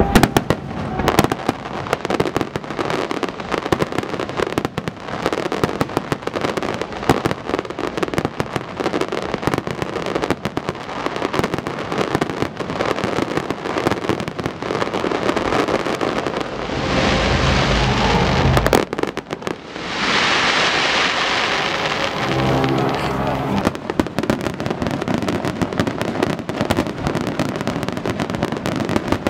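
Fireworks display barrage: many aerial shells bursting in quick, overlapping bangs with crackling between them. About two-thirds of the way through comes a couple of seconds of dense hissing crackle.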